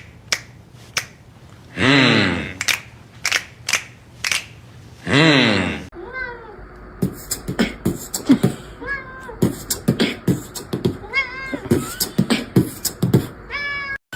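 A cat yowling in three long, loud calls that waver and fall in pitch, with sharp clicks in between. About six seconds in the sound changes to short, high cat mews mixed with quick tapping clicks.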